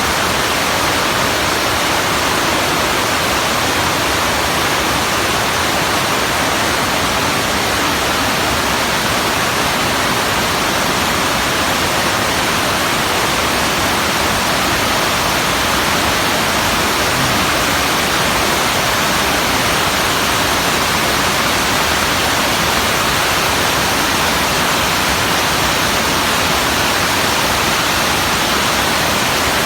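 Waterfall: a steady, loud rush of falling water with no change or break.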